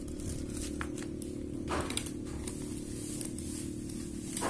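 Handling noise as a smartphone is picked up on a table: a few light clicks and rustles, over a steady low background hum.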